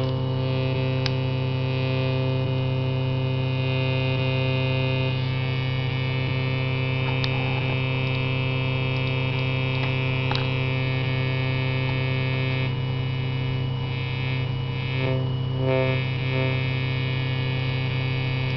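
Steady buzzing electronic drone from music software playing through speakers. Its upper part brightens about five seconds in, dulls again after about twelve seconds and flickers near the end.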